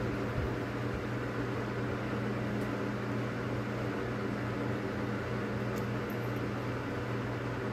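Steady electric motor hum with a fan-like hiss, even throughout, with a few faint small clicks as a screwdriver turns a screw.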